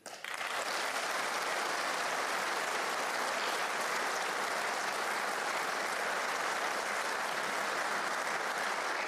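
Audience in a large hall applauding steadily. It starts suddenly and holds an even level.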